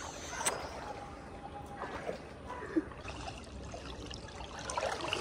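Swimming pool water lapping and trickling quietly, with a few small splashes and clicks.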